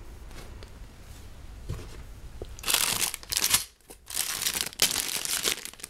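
Plastic bags of LEGO parts crinkling as they are handled and pulled from the box, in several loud bursts from about two and a half seconds in, after a light knock or two.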